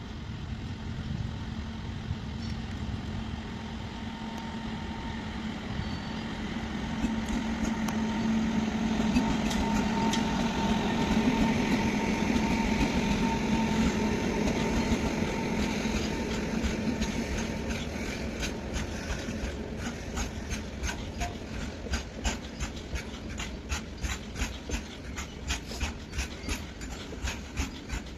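A train passing at speed: a steady hum with a faint whine grows to its loudest about ten to fourteen seconds in as the locomotive goes by, then the wheels click in a steady rhythm over the rail joints, several clicks a second, as the cars pass.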